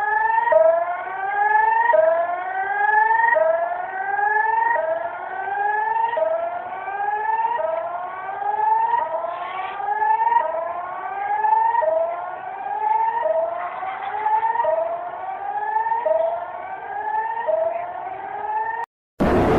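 Electronic emergency alert siren tone: a rising whoop repeated about every second and a half, each sweep climbing in pitch and then snapping back down to start again. It cuts off just before the end, when a different, noisier sound starts.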